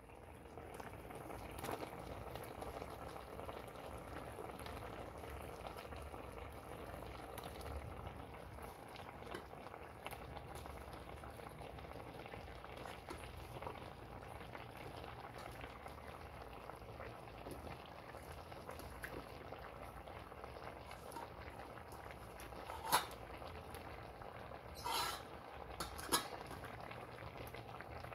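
Pork in sauce bubbling steadily in a pan, with a few sharp clicks near the end.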